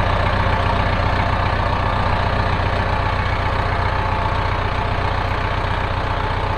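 Kubota tractor's diesel engine idling steadily.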